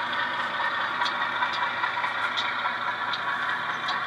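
Diesel engine sound from the ESU sound decoder of an HO-scale Pennsylvania Railroad Alco RS-11 model locomotive, played through its small onboard speaker, running steadily as the model moves, with a few faint ticks.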